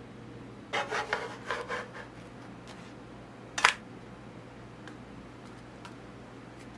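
Wooden ladle rubbing and scraping over the bottom of a nonstick frying pan as it spreads crepe batter thin, a quick run of strokes about a second in. A single sharp knock follows about halfway through, over a steady low hum.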